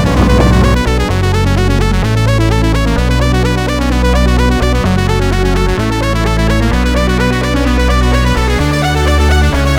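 Background electronic music with synthesizer and keyboard over a steady bass line.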